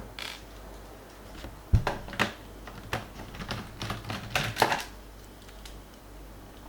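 Irregular clicks and taps of a laptop being handled, with a sharper knock a little under two seconds in and a quick cluster of clicks near the middle.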